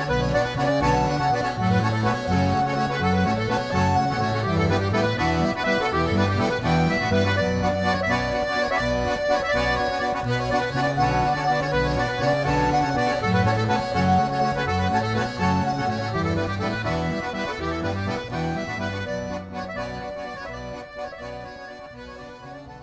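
Traditional-style accordion music with many held notes over a regularly changing bass line, fading out near the end.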